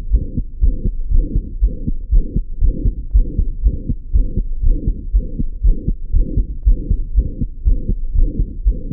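Recorded heart sounds heard through a stethoscope, beating in an even rhythm with a high-pitched, chirping murmur. Such a murmur could correspond to a muscular ventricular septal defect or to mitral regurgitation.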